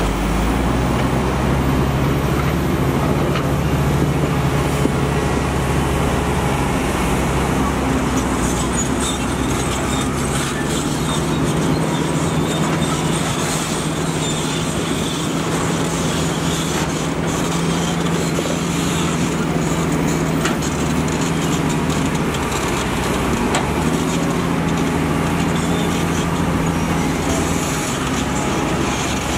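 Heavy construction machinery running steadily, its engine note shifting a few times as the load changes.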